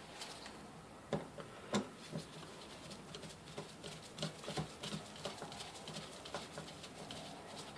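Screwdriver tightening the screws on the top cover of a rebuilt Briggs & Stratton opposed-twin fuel pump: faint, irregular clicks and ticks of the tool against the screw heads and the metal pump body.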